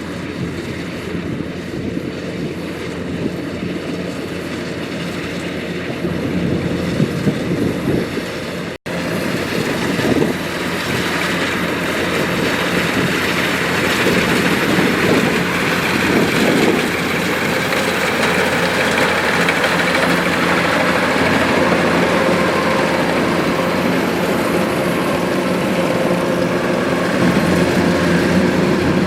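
Kubota DC-105X rice combine harvester running steadily, its engine and threshing machinery making a continuous drone. It cuts out for an instant about nine seconds in, then carries on a little louder.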